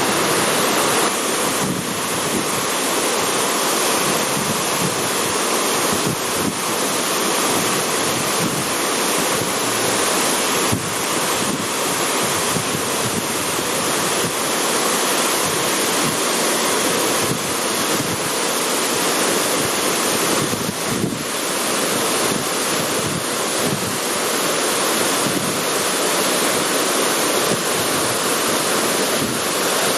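Thi Lo Su waterfall's water rushing steadily in a loud, even, unbroken noise.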